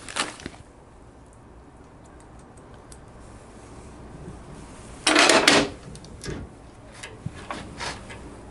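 Light clicks and clinks of small steel bolts, nuts and washers being handled and started onto a motorcycle transmission mounting plate, with one louder half-second burst of noise about five seconds in.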